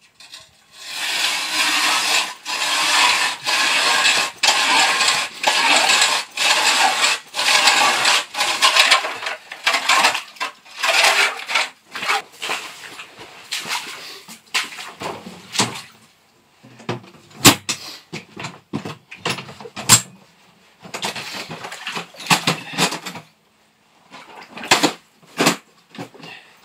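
Hand ice auger grinding through lake ice, a rough rhythmic scraping that breaks off about twice a second with each turn of the crank. In the second half come shorter irregular scrapes and a couple of sharp knocks.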